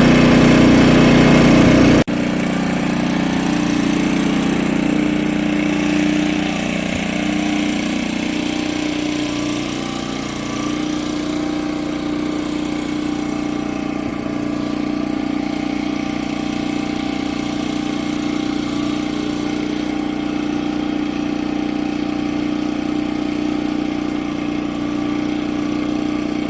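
Champion 5500-watt dual fuel inverter generator running steadily. The sound drops abruptly about two seconds in and eases a little more around six seconds in, then holds even.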